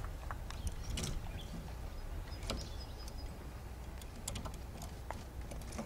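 Small scattered clicks and taps as a wind indicator is fitted by hand onto the top of a wooden mast, over a steady low rumble of wind on the microphone.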